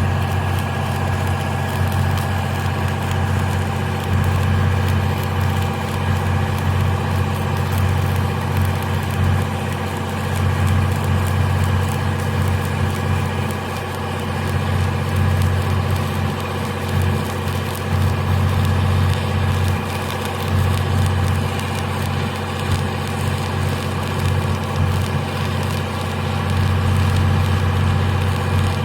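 Arc welding a single pass on a threadolet pipe fitting: the welding arc crackles steadily over a constant low hum.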